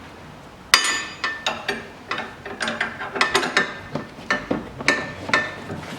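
Metal hand tools clinking and knocking against metal during work on a car's front stabilizer link and its nuts. There are about fifteen sharp, ringing strikes at uneven intervals, starting about a second in, with the first one the loudest.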